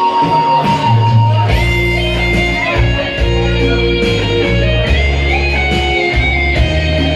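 Amplified music with electric guitar and a bass line coming in about a second and a half in, playing an instrumental introduction.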